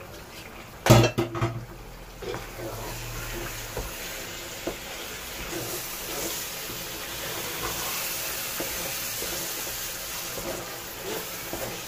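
Blended tomatoes and red pepper sizzling as they fry in hot oil in a pot, stirred with a wooden spatula. There is a sharp knock about a second in, and the sizzle swells a little toward the middle. The mixture is being fried down to dry out its water.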